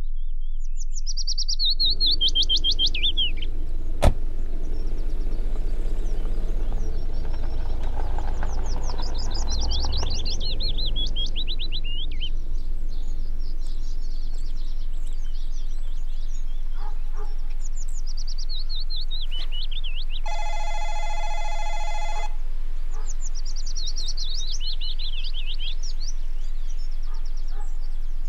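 A songbird repeatedly sings a short, fast descending trill, about every seven or eight seconds. In the first half a low rumble runs under it, with one sharp click about four seconds in, and about twenty seconds in a steady electronic buzz sounds for under two seconds.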